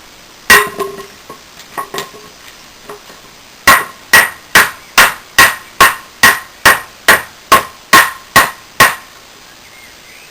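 Martindale No.2 golok machete chopping: one hard stroke about half a second in and a few light taps, then a run of thirteen quick, even chops at about two a second. Each hit is sharp and leaves a short metallic ring.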